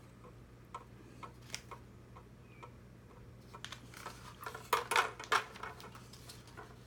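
Plastic kit parts and cable being handled: scattered light clicks and taps, with a burst of louder clicks about five seconds in.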